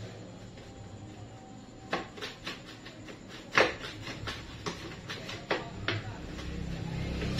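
Irregular clicks and knocks from a countertop blender's jar being handled on its base, a dozen or so over several seconds, the loudest about three and a half seconds in. A low hum comes in near the end.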